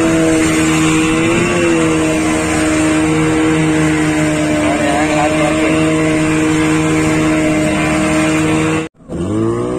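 A fishing boat's engine running steadily at speed, with the rush of water and wind over it. Near the end the sound cuts out abruptly and an engine comes back rising in pitch.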